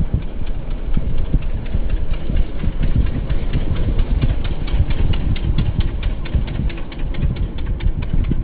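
Small motorbike engine running during a ride, with heavy wind rumble on the microphone and a fast, regular ticking of about five or six a second, clearest in the second half.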